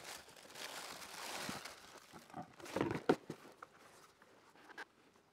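Cardboard shoe box being handled and opened: soft rustling and scraping of the lid, with a couple of light knocks about three seconds in.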